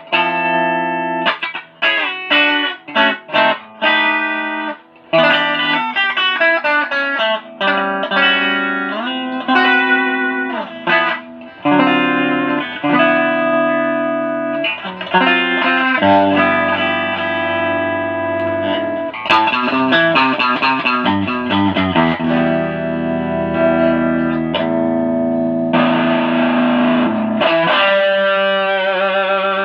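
Stratocaster electric guitar being played: short, separated notes at first, giving way to longer held notes and chords.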